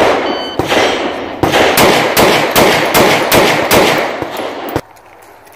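An electronic shot timer beeps briefly, and about a second later a pistol fires a fast string of about eight shots, two to three a second, each with a short echo. The string stops abruptly near the end.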